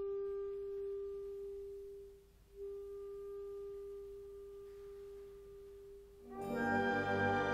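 Solo clarinet holding one long, soft note that fades away about two seconds in and is taken up again on the same pitch. Near the end the full orchestra, strings included, comes in loudly under it.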